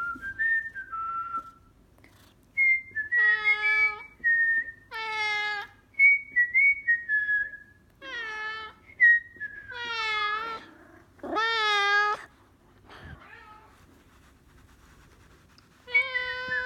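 A person whistles short phrases, and a Maine Coon cat answers them with about six long meows, each louder than the whistling. The meows are the cat's protest at the whistling, which it hates.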